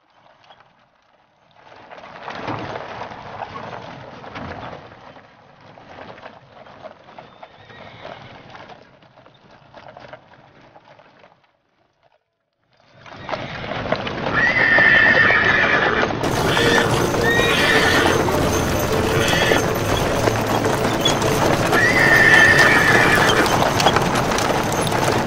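A mass of horses in a buzkashi scrum: hoofbeats and jostling on dirt, softer at first, then after a second of silence about halfway a louder, denser crush of hooves with several high horse whinnies.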